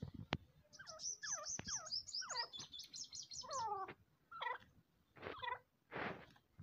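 A dakhni teetar (francolin) calling: about a second in, a fast chatter of high, sharp notes over squeaky, falling notes lasting about three seconds, followed by three separate harsher calls.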